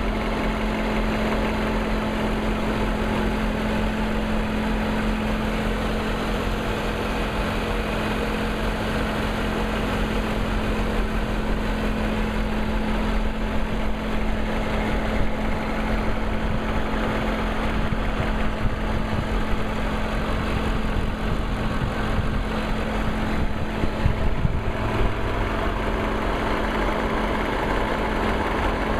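A 2003 BMW 540i's 4.4-litre V8 idling steadily, with a ticking from the engine.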